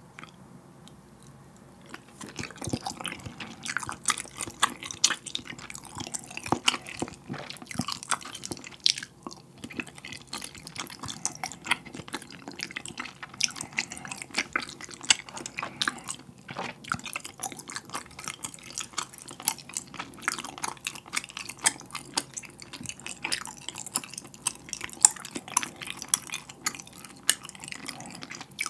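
Close-miked chewing of tteokbokki, chewy rice cakes in spicy red sauce: a dense run of short mouth clicks and smacks, several a second, starting about two seconds in.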